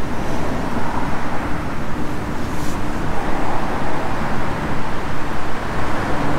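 Steady city traffic noise: a continuous rumble of road traffic with a faint hum underneath.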